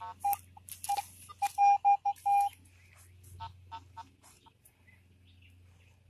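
Garrett AT Pro metal detector sounding a string of short beeps as its coil sweeps the ground, loudest in a quick run of four about one and a half seconds in, with a higher steady tone from a phone over that run. The detectorist puts the low signal down to a rock rather than metal.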